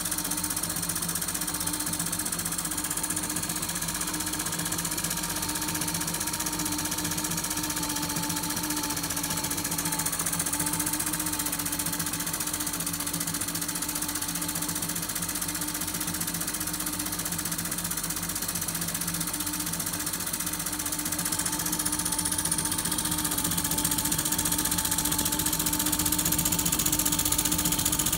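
PM Research No. 3 model steam engine running steadily on steam and driving a small generator: a rapid, even mechanical beat over a steady hiss and hum. It gets a little louder in the last few seconds.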